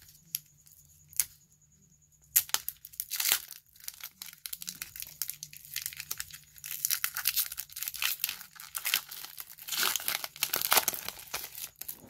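Foil wrapper of a Pokémon booster pack being torn open and crinkled. There are a couple of soft clicks, then a dense run of crackling from about two seconds in until near the end.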